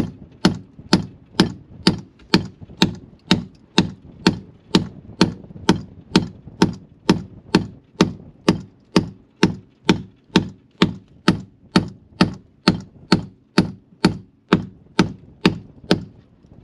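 A hammer striking a nail in a wooden boat's frame timber, a steady run of sharp blows a little over two a second. The blows stop just before the end.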